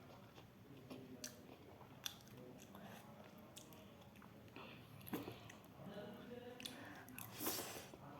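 A person chewing a mouthful of fried rice, with scattered faint mouth clicks and a short louder noisy burst near the end.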